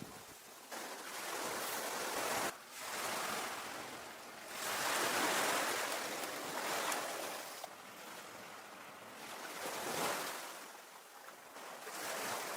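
Ocean surf washing onto a beach, swelling and falling back several times.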